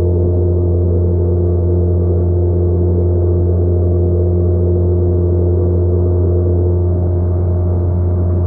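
Outboard motor of a small inflatable boat running steadily at cruising speed: a constant low hum with a few fixed tones and no change in speed.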